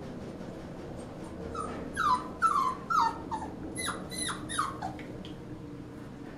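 Goldendoodle puppy crying, about eight short, high cries in quick succession, each falling in pitch. They are distress cries from a puppy confined alone in a box.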